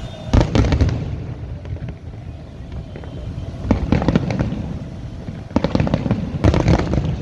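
Fireworks going off: four clusters of sharp bangs and crackles, about a third of a second in, around four seconds in, and twice near the end, over a steady low background rumble.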